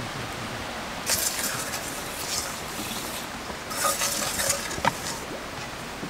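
Steady rush of running river water, overlaid by two short spells of crackling and scraping and a single sharp click about five seconds in.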